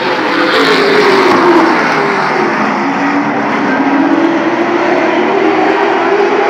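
Late model stock cars racing on a short oval, their engines running at full throttle. A car passes close by with its engine pitch dropping over the first couple of seconds, then several engines drone together and climb in pitch again as the pack comes through the turn.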